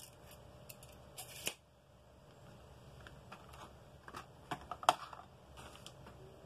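Steel tape measure's blade retracting into its case, with a short zip that ends in a snap about a second and a half in. Then clicks and rustles of a cardboard box and a clear plastic clamshell tray being handled and set down, the loudest a sharp click near five seconds.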